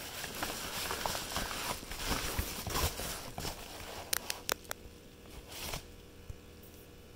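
Packing paper rustling and crinkling as it is handled and unwrapped, with a few sharp clicks about four seconds in, then quieter.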